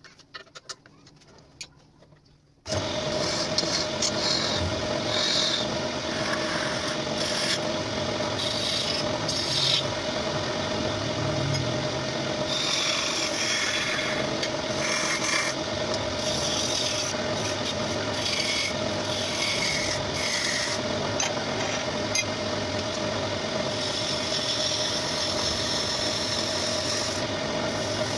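Homemade wood lathe turning a wooden bowl blank while a long-handled hand tool cuts into its inside. There is a scraping, rasping hiss over a steady hum, and it starts abruptly about two and a half seconds in after a few light clicks.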